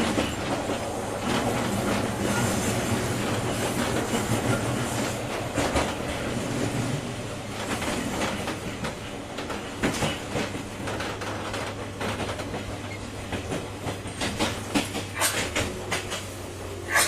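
Running noise inside a JR 201-series electric train's motor car: a steady rumble and hum of the motors and wheels that eases off partway through, with wheels clacking over rail joints in the second half.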